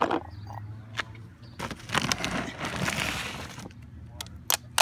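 Dry cat food being handled: a few sharp clicks and about two seconds of rustling and scraping in the middle.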